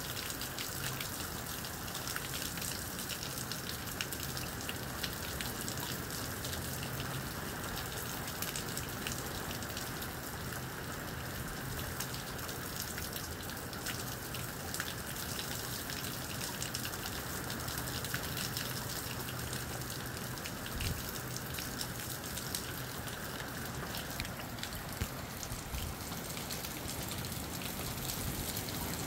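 Moderate rain falling steadily, a dense hiss full of small drop ticks on hard surfaces.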